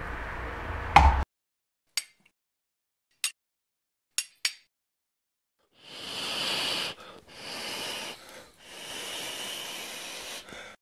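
A few faint clicks, then three breathy, hissing rushes of air, each a second or two long with short gaps between.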